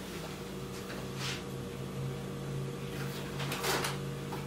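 Soft rustling and handling of packaged groceries being put into an open refrigerator, a couple of brief rustles about a second in and near the end, over a steady low hum.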